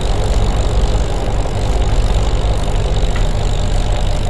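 Tractor engine idling with a steady low throb.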